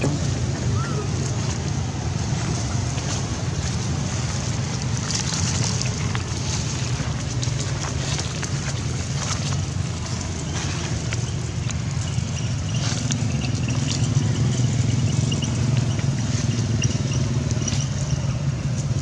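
A steady low rumble, with scattered faint clicks and rustles over it.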